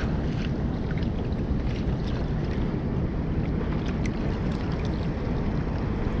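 Steady rush of flowing water below a dam spillway, with wind on the microphone and a few faint small clicks.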